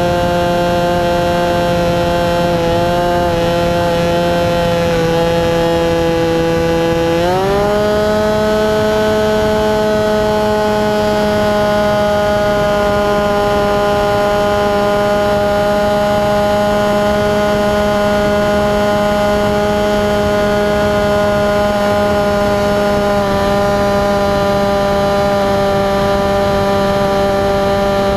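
RC model airplane's motor and propeller, heard from a camera on the plane, running at a steady pitch. About seven seconds in the pitch steps up as the throttle opens, then holds, easing down a little near the end.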